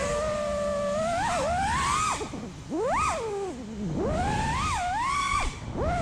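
FPV freestyle quadcopter's Brotherhobby Avenger 2207.5 2350kv motors and HQProp J37 propellers whining. The pitch swoops up and down as the throttle is punched and eased through tight turns. It drops away briefly at throttle cuts, about two and a half seconds in and again near the end.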